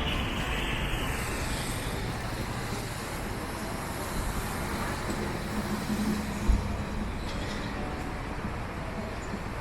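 Road traffic passing as a steady wash of tyre and engine noise, with a steady engine hum in the middle and one short thump about six and a half seconds in.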